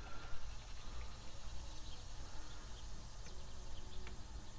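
Faint outdoor background ambience: a low steady rumble with a few faint high chirps and ticks, while the thermometer reading settles.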